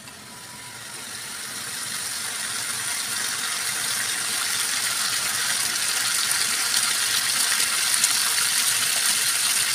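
Chicken and potatoes sizzling as they fry in oil in a pot on a gas stove: a steady hiss with small crackles that grows louder over the first couple of seconds.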